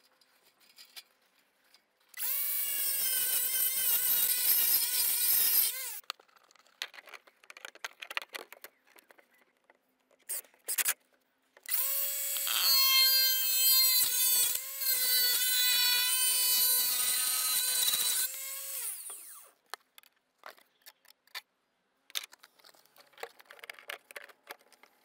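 Handheld power tool run twice at a steady high whine, first for about four seconds and then for about six, each time winding down in pitch as it is released. Scattered small knocks and taps come between the runs.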